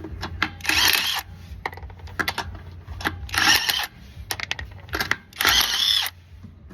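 Cordless impact wrench run in three short bursts, with light metal clinks of socket and bolts between them.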